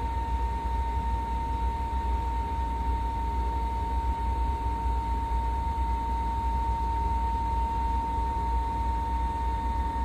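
Furnace running: a steady low rumble with a constant high-pitched tone over it.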